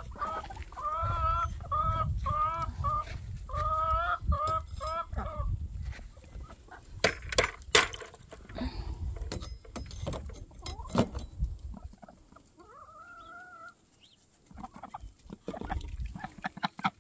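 Chickens calling in a run of short, repeated clucks through the first five seconds or so, over a low rumble of wind on the microphone. A few sharp knocks come around seven to eight seconds in, and one more drawn-out call comes a little past halfway.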